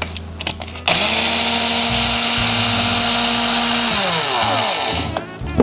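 Cordless power driver spinning up about a second in and running steadily for about three seconds while backing out a screw on an RC crawler's gearbox, then winding down in pitch.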